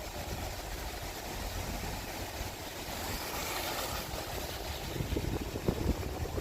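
Car running along a road, heard from inside as a steady low rumble, with a few knocks about five seconds in.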